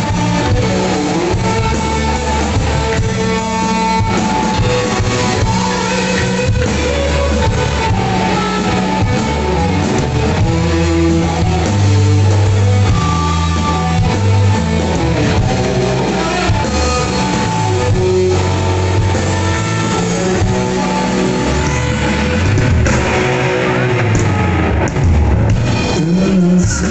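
Rock band playing live: electric guitar over a heavy, prominent bass line and a drum kit.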